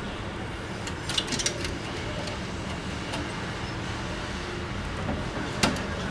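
A few sharp clicks and light knocks of the printer's plastic and metal parts being handled during disassembly, the loudest near the end, over a steady low hum.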